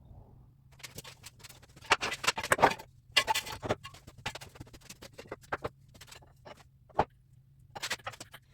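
Irregular clicks, taps and knocks of hand work in a garage, tools and metal being handled. They come in clusters, busiest about two to four seconds in, with one sharp knock near seven seconds.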